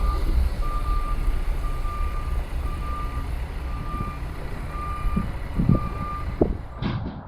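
Reversing alarm of a construction vehicle beeping about once a second over a low engine rumble, stopping about six seconds in, with a couple of knocks near the end.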